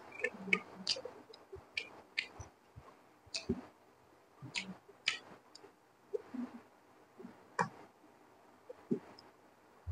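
Close-miked eating sounds of fried rice eaten by hand: irregular wet clicks and smacks of chewing, a few every second.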